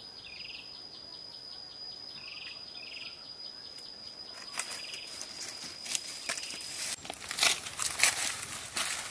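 Footsteps crunching through dry leaves and tall grass, beginning about four seconds in and loudest near the end, over a steady high insect trill with a few short chirps that stops about seven seconds in.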